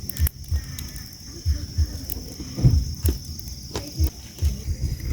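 Insects chirring in a steady high-pitched drone, over irregular low thumps and knocks.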